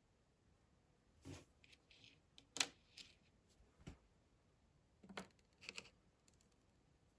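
A few separate light clicks and taps from small plastic toy pieces and packaging being handled, with a brief soft rustle about two seconds in; the sharpest click comes about halfway through.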